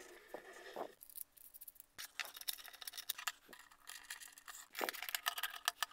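Hands handling 3D-printed plastic parts and small hardware on an aluminium-rail frame: scattered light clicks and taps, with a few soft brushing sounds. A faint steady hum starts about a second in.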